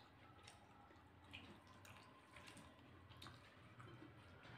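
Near silence: room tone with a few faint, scattered soft clicks from fingers mixing rice on a plate.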